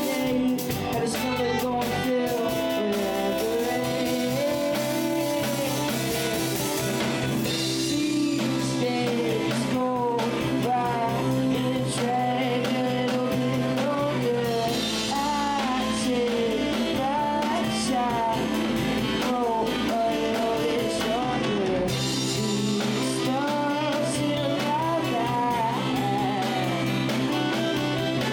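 Music: a sung melody over guitar, bass and drums in a bluesy rock style.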